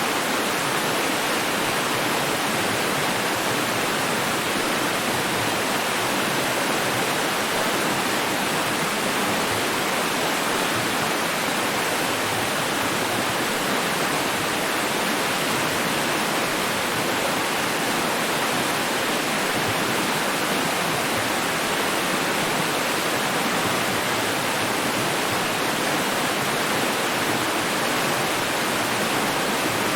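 Running water: a steady, even rushing that does not change.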